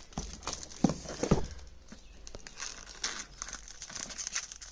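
A blade cutting open a parcel's wrapping, with two sharp knocks about a second in followed by irregular scraping and crinkling of the packaging.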